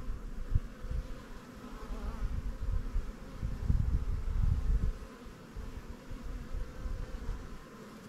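A honeybee colony humming steadily inside a top-bar hive, with an uneven low rumble under it that swells and fades, loudest about halfway through.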